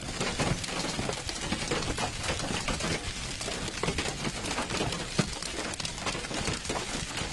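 Hailstones falling and striking an asphalt road and roadside: a dense, irregular patter of sharp clicks and ticks over a steady hiss.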